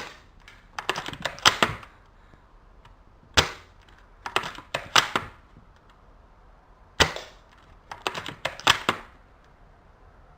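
Spring-powered L96 Warrior airsoft bolt-action sniper rifle fired three times, a sharp crack about every three and a half seconds. A quick run of clicks follows each shot as the bolt is worked back and forward to cock the spring and chamber the next BB.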